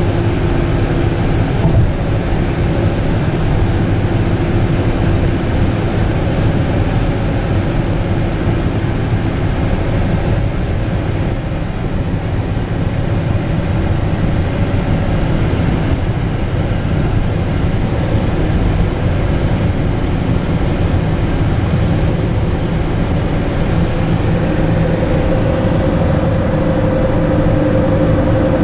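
Steady road and engine drone inside a car cabin cruising at about 100 km/h, with faint humming tones that drift slowly in pitch.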